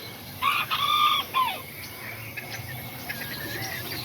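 Kikiriki bantam rooster crowing once. The crow is short and high-pitched, starting about half a second in, lasting just over a second and ending on a falling note.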